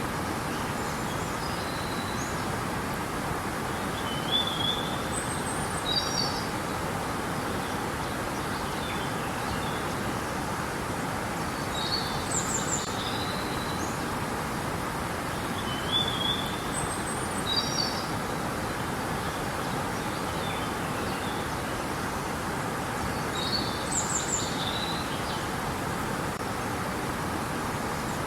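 River water rushing steadily, with small birds chirping in short, high phrases every few seconds.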